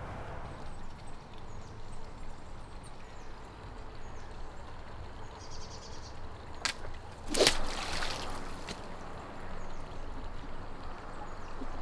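Outdoor ambience at a pond's edge with a steady low rumble, broken by a sharp click and, about a second later, a short sudden swishing noise as a fishing rod and line are worked.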